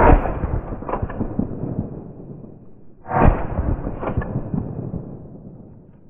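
Two shotgun shots about three seconds apart. Each is followed by a fainter crack about a second later and a long rolling tail that dies away.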